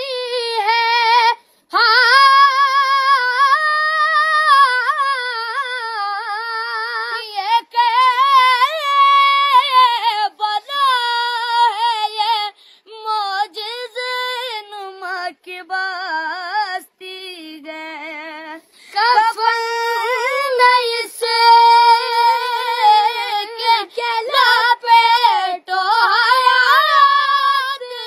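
A boy singing an Urdu devotional kalam about Karbala solo and unaccompanied, in a high voice with wavering, ornamented lines. He sings in long phrases with short breaths between, dropping lower and quieter for a stretch about two-thirds of the way in.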